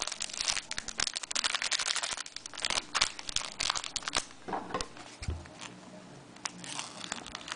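Plastic wrapping crinkling and tearing as a factory-sealed trading card box is opened: dense crackling for about four seconds, then quieter scattered crinkles and a soft thump.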